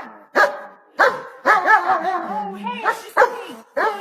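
A dog barking and whining: a run of short, sharp barks and yelps in quick succession, with whining between them.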